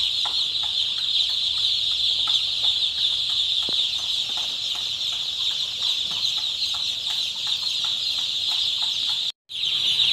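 Dense, steady high peeping of thousands of newly delivered day-old broiler chicks crowded together. It cuts out for an instant near the end.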